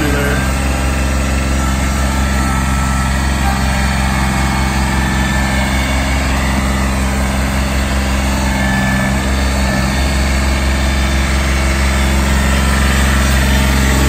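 Kubota B26 tractor-loader-backhoe's three-cylinder diesel engine running steadily at low revs as the tractor drives slowly on its hydrostatic drive, a little louder near the end.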